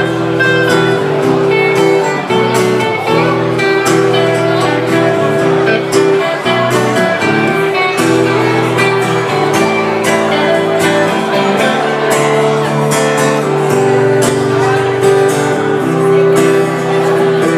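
Acoustic guitar strumming chords with an electric guitar playing melody lines over them, played live in an instrumental passage with no singing.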